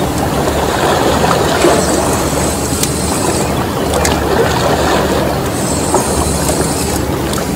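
Shoreline sea ambience: water lapping and washing against the shore rocks, with a steady low drone underneath and scattered small clicks and ticks.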